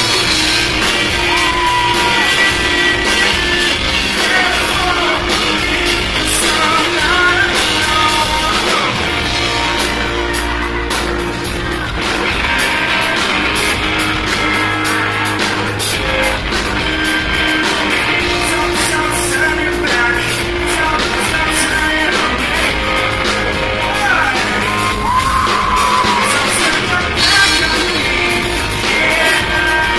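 Live rock band playing a song, with a man singing lead into a microphone over electric guitar.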